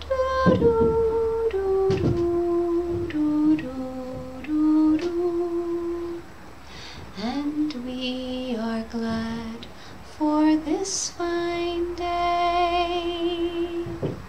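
A woman singing a slow, wordless tune: held notes stepping up and down, with a few short upward slides between them.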